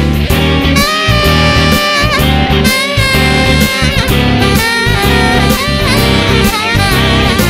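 Background instrumental jazz music with a saxophone melody over a steady beat and bass.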